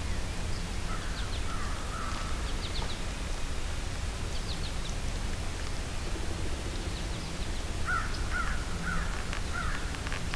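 Wild birds calling in spring woodland: a run of about five short calls in quick succession near the end, a shorter run about a second in, and faint high chirps scattered between, over a steady low rumble.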